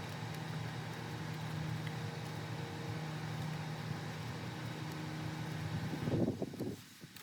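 A motor-driven machine humming steadily, then a short louder rush about six seconds in before it shuts off.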